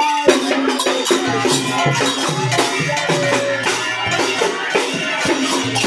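Devotional kirtan music: group singing over jingling hand cymbals and drums.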